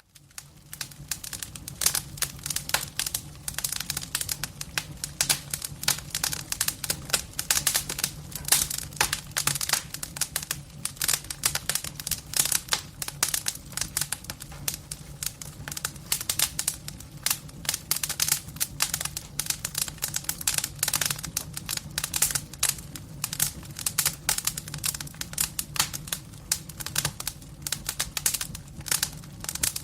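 Wood fire in a fireplace crackling: dense, irregular pops and snaps of burning firewood, several a second, over a low steady hum.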